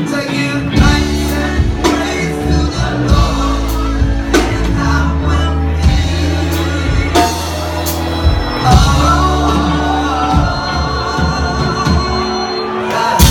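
Live reggae band playing, with a bass line, drum hits and a singing voice, heard through a large hall.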